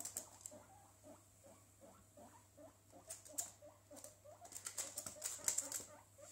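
Guinea pig making a run of short, quick soft squeaks, several a second, while moving about in a LEGO brick enclosure. Clusters of light sharp clicks come about three seconds in and again near the end.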